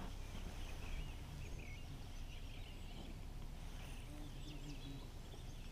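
Birds calling: a few short, wavering chirps, heard twice in small clusters, over a steady low rumble.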